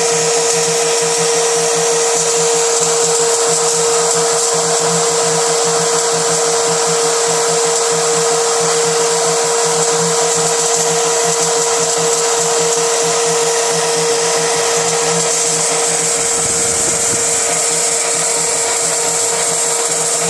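Small CNC machine's spindle running steadily while drilling 0.8 mm holes in 5 mm PVC sheet: a constant hum with a high whine over it.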